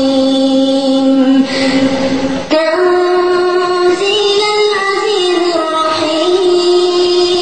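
A high, young voice chanting Quran recitation melodically, without accompaniment, in long held notes. It breaks off for a breath about two seconds in, then starts a new phrase on a higher note.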